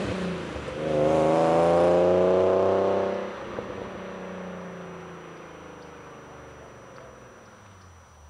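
1993 Nissan 300ZX's naturally aspirated 3.0 V6 breathing through Stillen headers and a Billy Boat exhaust, revved up about a second in, held for about two seconds, then dropping back to a quieter idle that fades away.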